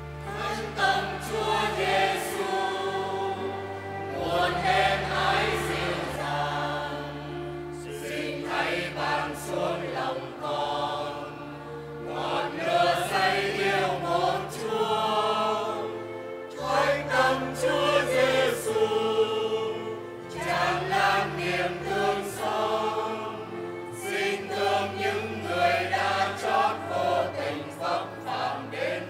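Mixed church choir singing the closing hymn of Mass in phrases, accompanied by electronic keyboards holding sustained bass notes.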